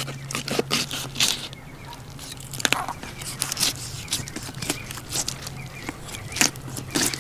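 Thin 7.5-inch Old Timer fillet knife cutting into a big redfish behind the head and along the back, through its heavy scales and flesh: irregular crunching and scraping clicks.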